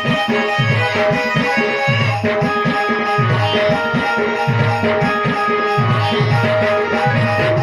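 Instrumental dance music: a hand drum plays a repeating pattern of deep strokes that bend in pitch, under sustained melody notes.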